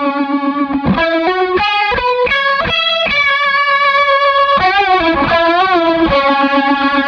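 Overdriven electric guitar played through a Hammond Leslie G rotary-speaker pedal: a held note throbbing with the rotor, a quick run of notes about a second in, then bent, wavering notes, ending on a held note with fast, even pulsing.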